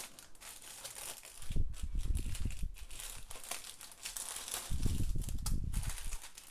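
Plastic crinkling as small plastic bags of diamond-painting resin drills are handled and sorted over a plastic-wrapped canvas. Twice, for about a second each, there is louder low bumping.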